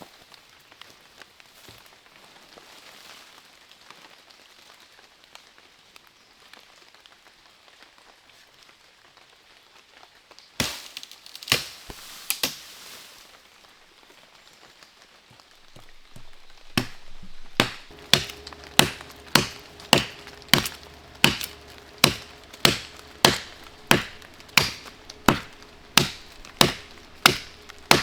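A blade chopping into a small tree: first quiet movement, then three strikes about halfway through, then steady chopping at a little under two strokes a second for the last ten seconds.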